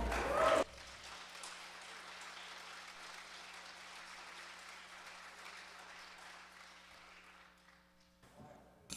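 The choir's final sung note cuts off under a second in, followed by faint applause from the congregation that dies away over several seconds.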